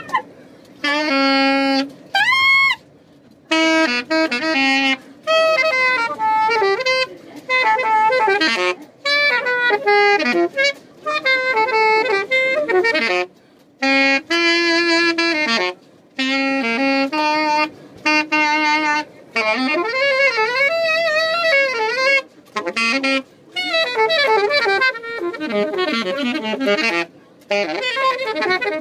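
Saxophone wailing in loud, short phrases of held and bent notes, with swooping pitch slides, broken by brief pauses for breath.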